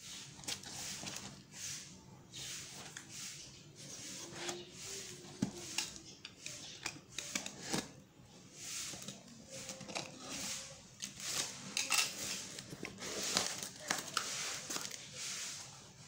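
Scissors cutting through packing tape and a cardboard parcel being torn open, with repeated crinkly rustling swells and scattered sharp clicks.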